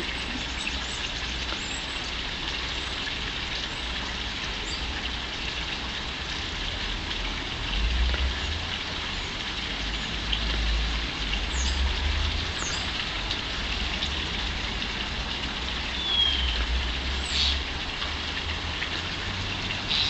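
Steady outdoor hiss with low rumbles coming and going, and a few brief calls from small garden birds, starlings among them, about halfway through and near the end, one a short falling whistle.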